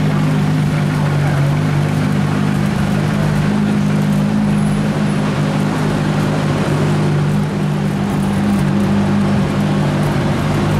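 Aston Martin One-77's 7.3-litre V12 idling steadily, its exhaust note echoing in an underground car park.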